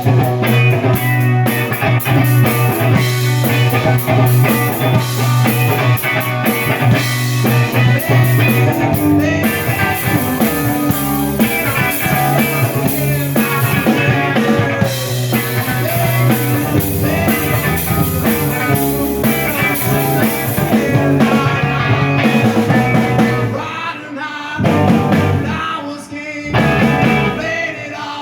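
Rock band playing, with guitar, drums and singing; the music thins out briefly near the end.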